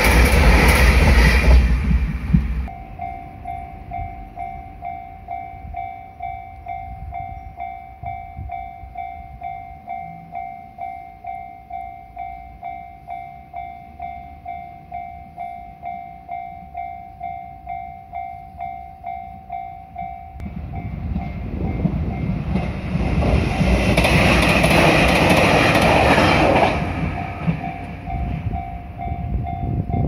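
A JR Shikoku 2700 series diesel express train passes loudly, cutting off about three seconds in. A Japanese level-crossing warning bell then rings in steady repeated dings. About twenty seconds in, another diesel train approaches and passes, drowning out the bell at its loudest, and the bell is heard again near the end.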